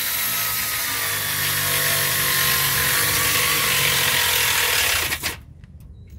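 Pneumatic wrench on an air hose running continuously as it drives a bolt in the front suspension, then stopping about five seconds in.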